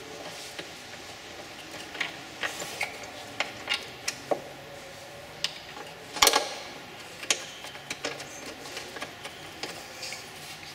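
Scattered clicks and knocks of a Ford F-150's plastic-cased engine computer (PCM) and its mounting studs being handled and pushed into place on the firewall, with one louder knock about six seconds in, over a faint steady hum.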